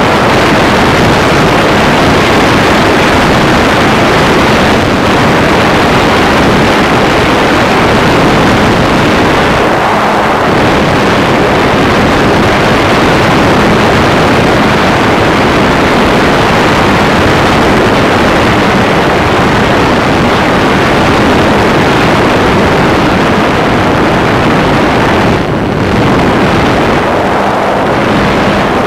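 Multiplex Solius RC glider's electric motor and propeller running under power in a steep climb, heard from the onboard camera as a loud, steady, distorted rushing noise mixed with wind buffeting the microphone.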